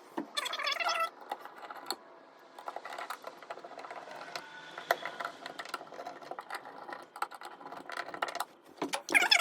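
Small metal clicks and light rattles of hardware being handled on an electrical outlet box, irregular and fairly quiet.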